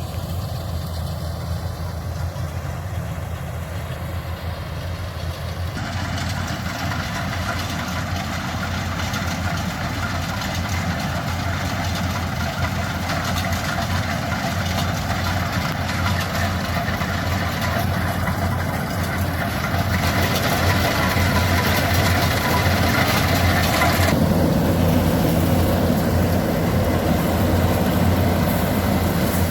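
Mini combine harvester's engine running steadily, its sound changing abruptly about six seconds in and again around twenty and twenty-four seconds.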